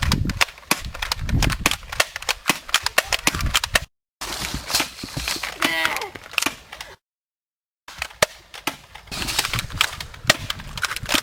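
Airsoft guns firing rapidly: a dense string of sharp snapping shots, cut off twice by brief spells of dead silence.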